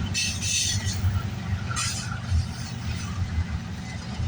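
Freight cars of a long intermodal train rolling past, a steady low rumble with uneven clunks from the wheels on the rails. Two brief hissing bursts come near the start and about two seconds in.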